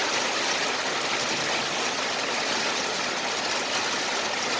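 Steady rain falling, an even hiss with no separate hits.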